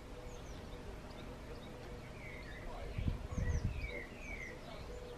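Garden birds singing: short high chirps and trills over a faint steady hum. About three seconds in, a brief low rumbling bump is the loudest sound.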